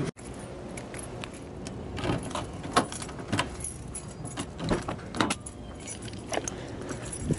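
A bunch of keys jangling in a hand, with a run of sharp metallic clicks and knocks, the loudest about three and five seconds in.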